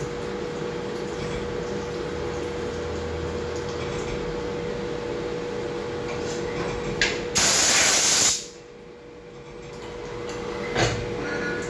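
CNC machining center drilling a metal part under flood coolant: a steady spindle whine over the hiss of coolant spray. About seven seconds in comes a loud rushing burst lasting about a second, after which the sound drops sharply and slowly builds back.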